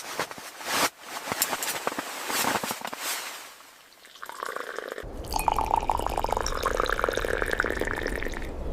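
Water pouring and dripping, irregular and splashy, with a denser, steadier sound over a low rumble taking over about five seconds in.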